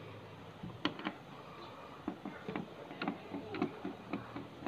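A hand screwdriver undoing the screws that hold an LED TV's power supply board to its metal chassis: small metallic clicks and ticks, a couple about a second in, then a quick run of them, about three or four a second, through the second half.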